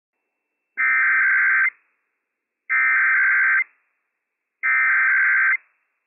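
Emergency Alert System SAME header on NOAA Weather Radio: three bursts of digital data tones, each just under a second long, about a second of silence between them. This encoded header opens a Required Weekly Test.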